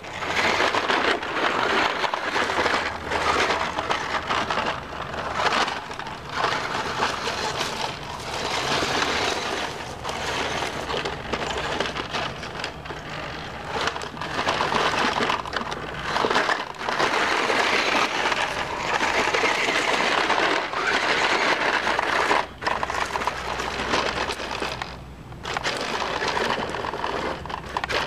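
Toy-grade New Bright RC rock crawler's electric motor and gearbox grinding in stop-and-go spurts as the truck climbs over stones, with tyres scraping on rock.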